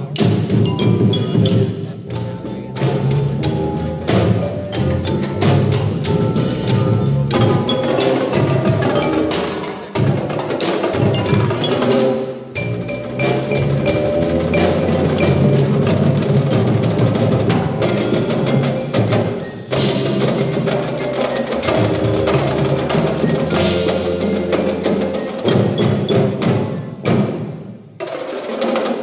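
Indoor drumline playing: marching snares, tenor drums and bass drums with marimbas and other mallet keyboards, in dense rhythmic passages over held low tones. The music thins out briefly about a second before the end.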